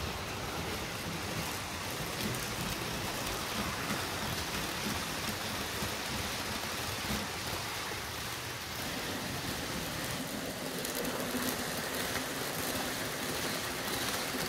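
H0-scale model ICE trainsets running on the layout track: a steady rushing noise of model wheels rolling over the rails.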